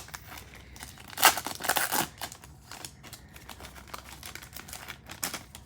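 A card pack's wrapper being torn open and crinkled by hand, in a few short rustling bursts, the loudest about a second in.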